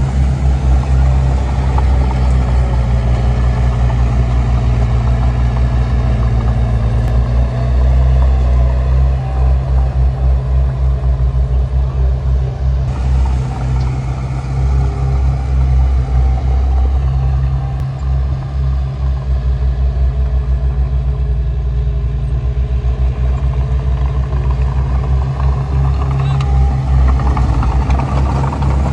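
Heavy diesel engine of earthmoving machinery running steadily and loudly with a deep, even drone.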